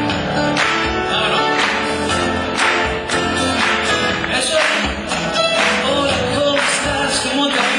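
Live acoustic guitar music with a man singing, strummed to a steady beat of about one accent a second.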